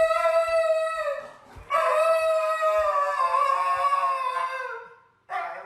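A dog howling: long, high, sustained howls. One ends about a second in, a second howl lasts about three seconds and slides down in pitch at its end, and a short call follows near the end.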